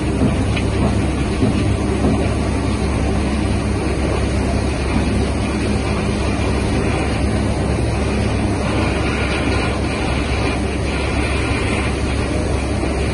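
Ship's engine and machinery running with a steady low rumble, mixed with wind noise on the microphone.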